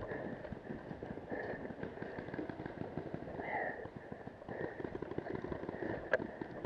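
Footsteps crunching through dry fallen leaves at a quick walk, with one sharp knock about six seconds in.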